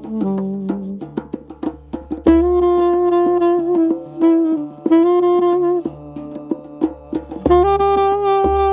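Saxophone improvising in several long held notes with short runs between them, over a steady patter of hand-drum strokes.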